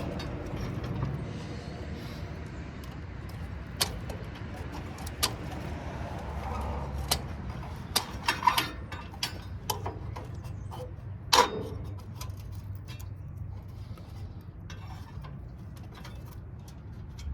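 Scattered sharp clicks and clanks of metal parts being handled while scrap light fixtures are taken apart, about half a dozen, the loudest a little past halfway, over a low steady rumble.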